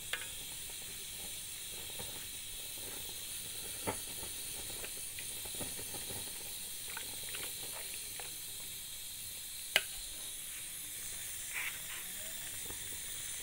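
Pot of chicken karahi cooking with a steady hiss of simmering and steam. A few light clicks are heard, and one sharp click a little under ten seconds in.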